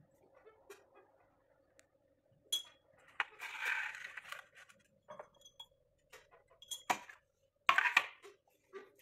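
Metal cutlery clinking and scraping against a stainless steel compartment plate: scattered sharp clinks, a short rasping stretch about a third of the way in, and the loudest clinks near the end.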